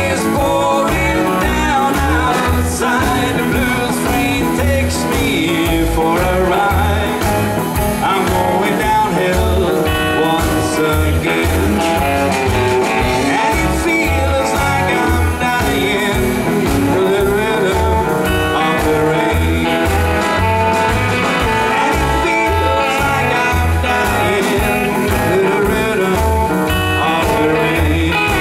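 Live rock 'n' roll band playing: upright double bass, piano, drums and electric guitar, over a steady driving beat.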